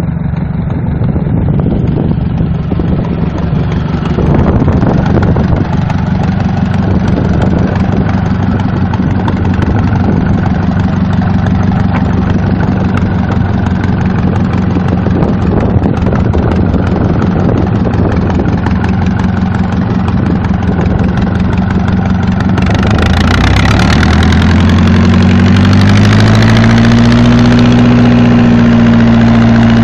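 Fishing boat's inboard engine running steadily, then speeding up about three-quarters of the way through and holding the higher speed.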